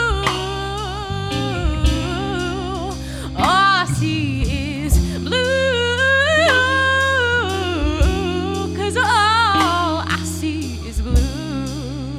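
A woman singing a wavering, drawn-out melody over an electric bass holding long low notes, with electric guitar and occasional drum hits from a small live band.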